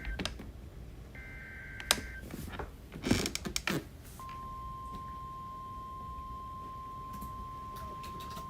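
A weather-radio alert starting. The last of the S.A.M.E. header data bursts, each a buzzy warble about a second long, is followed by a few clicks around three seconds in. About four seconds in, the steady single-pitch 1050 Hz NOAA Weather Radio warning tone starts and holds, the signal that a warning message follows.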